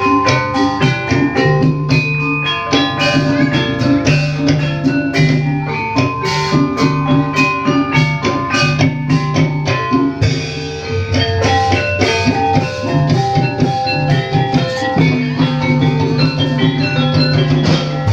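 Javanese gamelan music of the kind that accompanies ebeg: a dense melody of struck tuned percussion over drums, in a steady rhythm.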